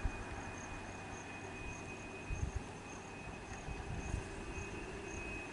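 Insects buzzing: a steady high whine with a faint chirp repeating two or three times a second, over a low rumble.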